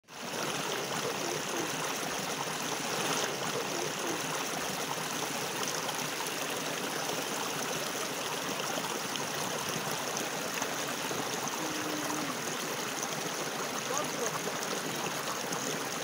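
Shallow rocky stream running steadily, water rushing and trickling over stones.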